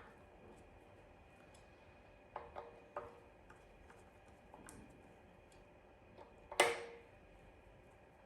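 Faint metal clicks and ticks of a 4 mm Allen key seating in and turning the rotor bolts on an e-bike front brake disc, a few scattered taps and one louder clink about six and a half seconds in.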